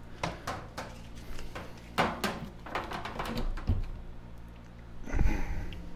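Scattered light knocks and clicks of hand tools and a lamp being handled on a wooden tabletop, over a faint low steady hum. A heavier bump with a brief rustle comes about five seconds in.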